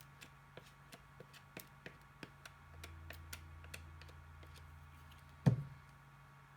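Even, quiet ticking, about three ticks a second. A low hum comes in partway through, and a single dull thump on the table near the end is the loudest sound.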